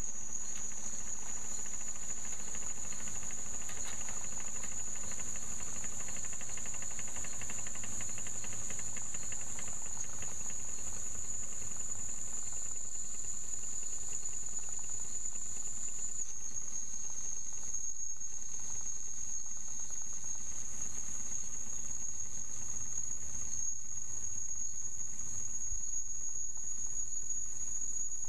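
Wilesco toy steam engine running, with a faint steady steam hiss, under one continuous high-pitched tone that steps down slightly in pitch about halfway through.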